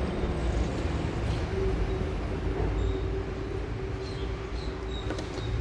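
A steady low mechanical hum with a constant tone running under it, with a few faint clicks.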